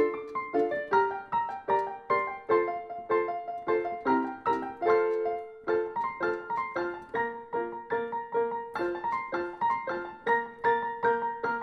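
Background music: a piano melody of quick, evenly paced notes.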